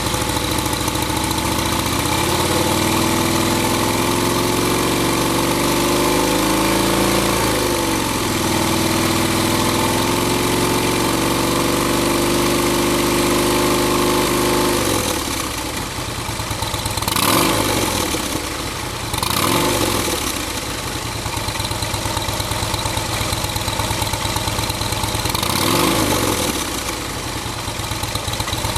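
2011 Harley-Davidson Heritage Softail's V-twin running through a Vance & Hines Pro Pipe 2-into-1 exhaust with quiet baffle, held at steady raised revs (around 3000 rpm) for about fifteen seconds. It then drops to idle and is blipped three times, each a quick rise and fall in pitch.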